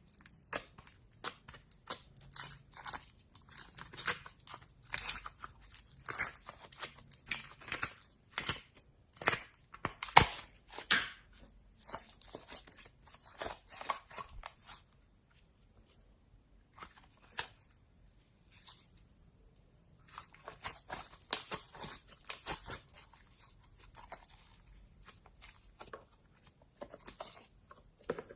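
Slime being squished and pressed by hand, giving a dense run of irregular crackles and crunching pops. The crackling thins out for a few seconds in the middle, then picks up again.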